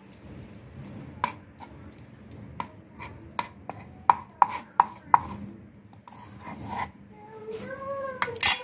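Broad cleaver-style knife knocking and scraping against a wooden chopping block while a small mackerel is gutted and cleaned: a run of sharp, irregular taps, quickest and loudest around the middle. A brief high voice calls out near the end.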